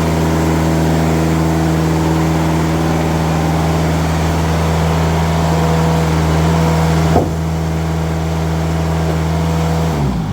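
Timberking bandsaw sawmill running under load, its engine steady while the band blade cuts a white pine slab with a loud hiss. About seven seconds in there is a sharp knock and the cutting hiss falls away, and near the end the engine slows down.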